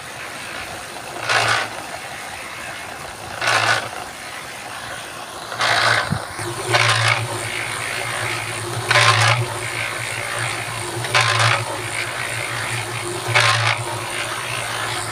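Electric concrete mixer running: a steady motor hum, with the wet concrete mix in the turning drum sloshing and slapping over about once every two seconds as it tumbles.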